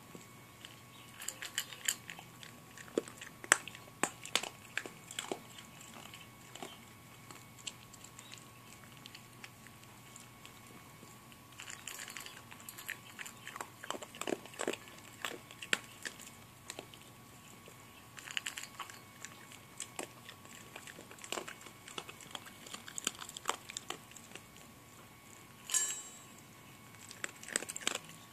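A puppy crunching dry dog kibble from a stainless steel bowl, the crunches coming in bursts of a few seconds with short pauses between. One louder click near the end.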